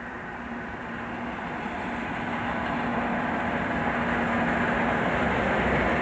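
Class 50 diesel-electric locomotive with its English Electric 16-cylinder engine, running with a steady hum and growing steadily louder as it approaches at the head of a passenger train.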